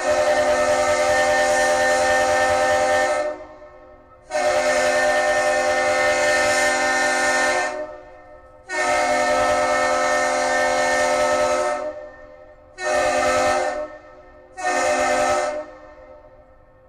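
The Great Lakes freighter Arthur M. Anderson's horn blowing the master's salute: three long blasts followed by two short ones.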